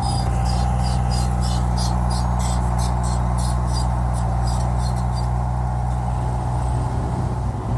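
Heavy earthmoving machine's diesel engine running steadily with a low drone. For the first five seconds or so a fast, high-pitched chirping of about four chirps a second rides over it, then stops.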